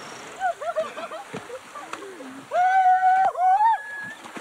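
Several people shouting and whooping as they wade into a river, with water splashing around them. One long, high yell about two and a half seconds in is the loudest sound.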